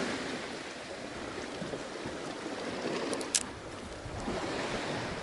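Sea water washing and lapping around a small fishing boat, a steady wash, with one brief sharp click about three seconds in.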